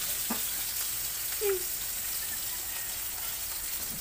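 Fish sizzling as it fries in hot oil in a pan, a steady hiss, with a faint click about a third of a second in and a brief short sound about a second and a half in.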